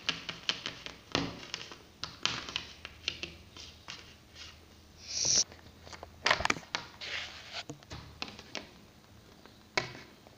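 Small plastic toy figurines tapping and clicking against a hard tabletop as they are hopped along by hand, in quick irregular taps. A short hiss about halfway through.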